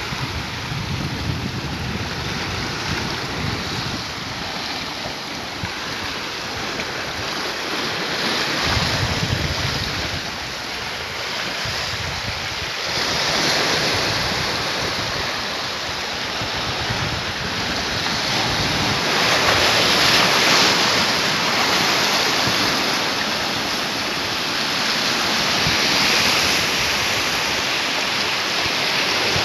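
Sea surf washing and breaking against shoreline rocks, a continuous rush that swells louder every few seconds as waves come in, loudest about two-thirds of the way through. Wind rumbles on the microphone at times in the first half.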